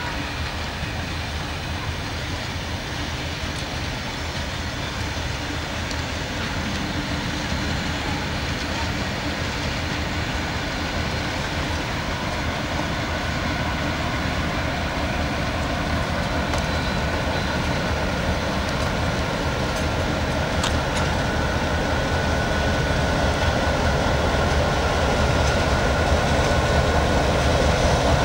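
Two diesel locomotives, 421-class 42107 and 49-class 4903, running as they move the train in reverse. Their engines make a steady drone that grows louder as they draw nearer, with a thin high squeal in the later part.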